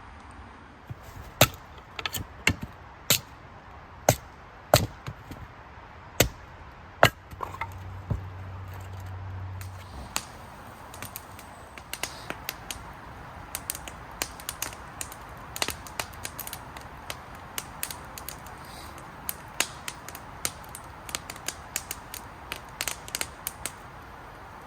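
A fire crackling: a string of sharp, loud pops over the first several seconds, then denser, quieter crackling over a steady hiss.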